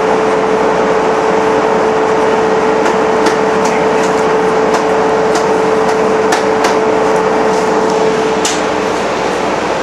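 Vaporetto engine running, heard from inside the cabin: a loud steady drone with a whine that fades out about eight and a half seconds in, and scattered sharp clicks and rattles from the cabin.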